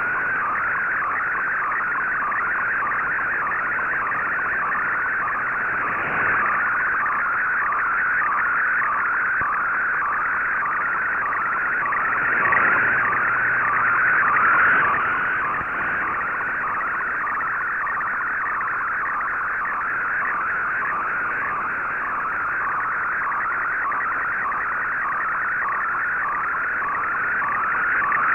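Shortwave MFSK digital picture signal heard through an Icom IC-R8600 communications receiver in AM mode: a fast, warbling data tone confined to a narrow band, with hiss beneath it, as a colour image is sent line by line.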